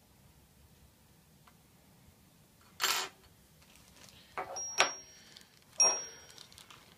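A plastic bag of replacement seals being handled and opened: a short rustle about three seconds in, then several sharp clicks and knocks of small parts, two of them leaving a brief high ring.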